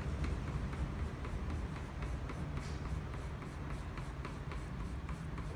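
Quick, short strokes of a reddish-brown drawing pencil on toned paper, several a second, laying in hair strands. A steady low hum runs underneath.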